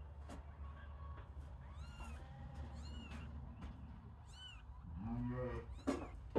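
Young kittens mewing: a few thin, high-pitched mews, then a lower, longer meow near the end, over a steady low hum.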